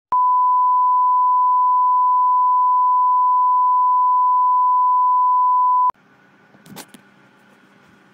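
Steady reference test tone of the kind played over TV colour bars: one unbroken pitch for about six seconds that cuts off suddenly. Faint room noise with a light knock follows.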